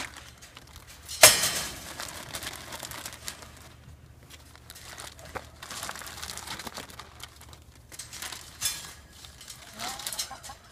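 Plastic bag crinkling as bread scraps are shaken out of it and the bag is folded, in several bouts of rustling, with one loud sharp knock about a second in.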